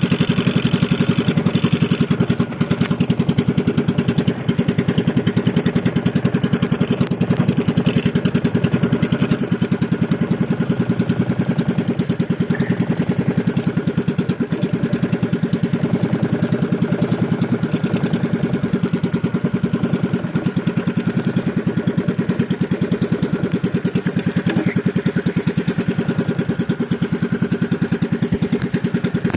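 Small engine of an outrigger fishing boat running steadily, an even, rapid putter with no change in speed.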